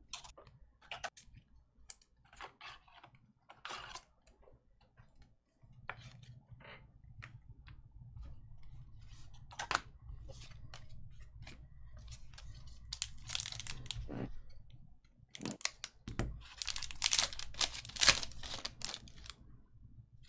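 Trading card pack wrappers being torn open and cards handled: scattered crinkles and clicks, with longer tearing and rustling about 13 seconds in and again from about 16 to 19 seconds.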